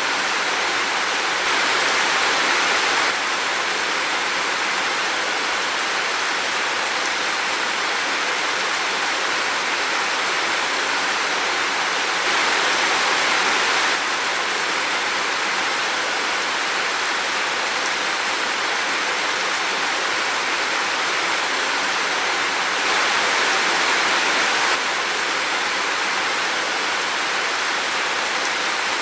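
Heavy rain falling, a steady dense hiss that swells slightly about every eleven seconds.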